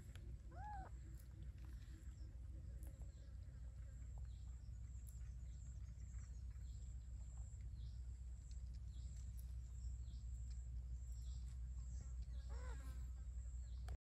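Parrots calling: two short arched squawks, one just after the start and one near the end, over a steady low rumble and a thin, steady high-pitched tone.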